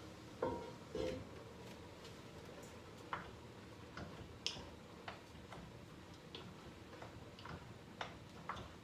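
A spoon clicking and tapping against a cooking pot as food is stirred on the stove. Two louder metal clinks with a short ring come in the first second, then lighter taps at an uneven pace of roughly one or two a second.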